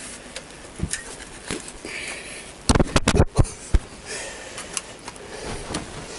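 Honda CBR1000F engine being worked out of its frame, with a few clicks and then a quick run of sharp knocks and clanks about three seconds in, the loudest part. Breathing from the effort can be heard between them.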